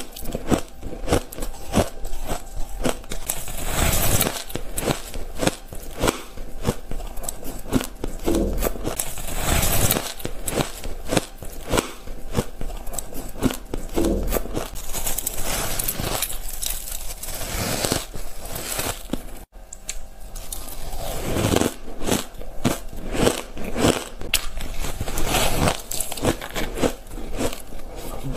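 Crunching bites and chewing of packed powdery ice, a dense run of crisp crackling crunches one after another. The sound cuts out for an instant about two-thirds of the way through.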